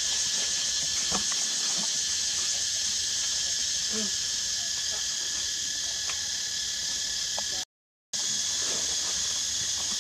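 Steady, high-pitched droning of forest insects, with a fixed whining tone running beneath it. The sound cuts out completely for a moment about eight seconds in.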